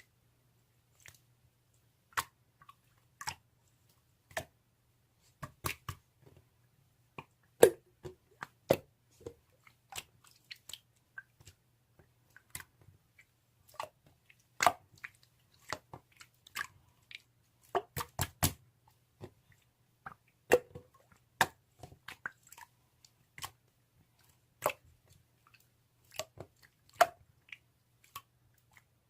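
Scattered, irregular sharp clicks and crunches, sometimes a quick cluster of several, over a faint steady low hum.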